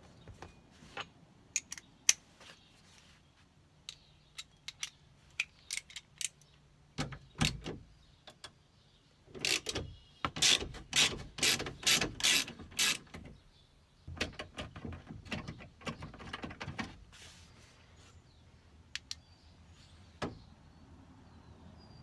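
Ratchet wrench clicking as Torx screws are backed out: two runs of rapid clicking near the middle, the first the loudest, with scattered single clicks and taps of tool on metal before and after.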